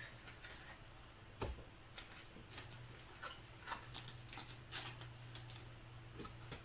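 Trading cards being handled and sorted: faint scattered rustles and soft clicks of card stock, over a steady low hum.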